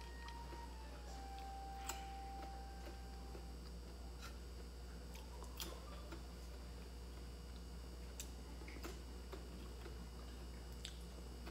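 A handful of faint, sharp clicks and crackles spaced a second or two apart, as fingers pick crispy fried cakes off a glass plate, over a steady low hum.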